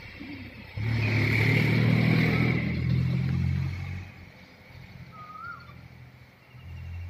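A motor vehicle's engine running loud and close, swelling up suddenly about a second in and dying away about three seconds later. A short high chirp follows.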